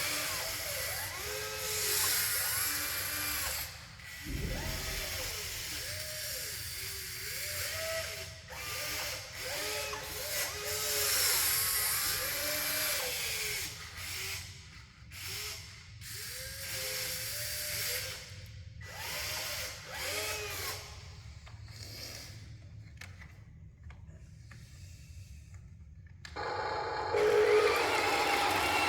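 Small electric motors of radio-controlled construction machines whining, rising and falling in pitch again and again as the controls are worked. A louder, steadier machine sound starts near the end.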